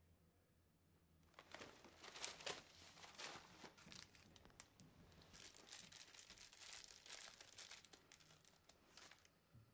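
Plastic snack wrapper crinkled and torn open by hand: a run of crackling rustles starting about a second in and dying away near the end.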